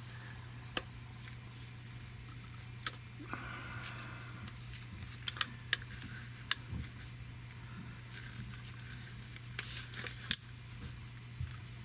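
Scattered light clicks and taps of hand work on the underside of a car, over a steady low electrical hum. About three seconds in there is a short hiss lasting roughly a second.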